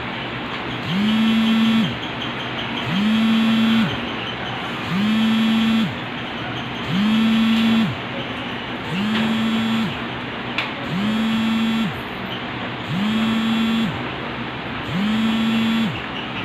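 A pitched mechanical hum that winds up, holds for about a second and winds down, over and over at an even rhythm of one cycle every two seconds.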